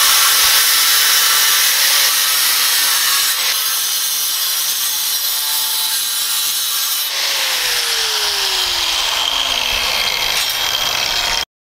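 Angle grinder cut-off wheels cutting through thin steel sheet with a loud, shrill hiss. About seven seconds in a grinder is switched off and its whine falls steadily as the wheel spins down, and the sound stops abruptly near the end.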